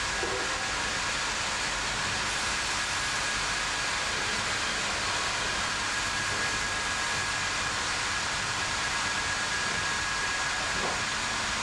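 AKE band saw line running steadily: an even, constant rushing machine noise with a faint high whine held at one pitch throughout.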